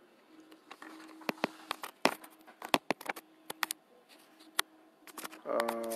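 Handling noise from a smartphone being moved and plugged into its charger: scattered sharp clicks and knocks, a few of them louder, over a faint steady hum.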